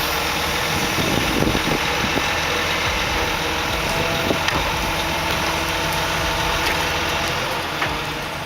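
Engine of a log-loading crane machine running steadily.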